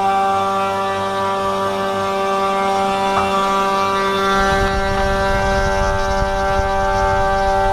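Steady whine of the 3018 CNC router's 500 W spindle while its end mill cuts a slot in wood. A low rumble joins the whine about halfway through.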